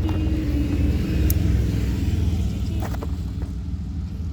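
A car engine running steadily, with a low, constant sound.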